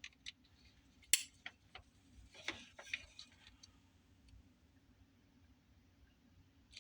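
Small sharp plastic clicks and taps from handling a newly crimped cable plug as it is pushed into its socket, the sharpest about a second in, the rest scattered over the next two seconds.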